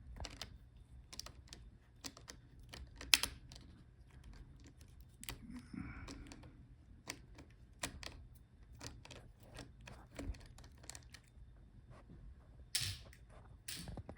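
Faint, scattered small clicks and taps of hand tools on the open base of a Dell Latitude 5310 laptop as its Wi-Fi card is unscrewed and freed, with a sharper click about three seconds in and two brief louder rasps near the end.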